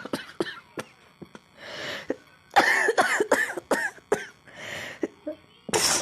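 A person coughing in short, rough bursts: a quick run of coughs about two and a half seconds in, and a louder one near the end.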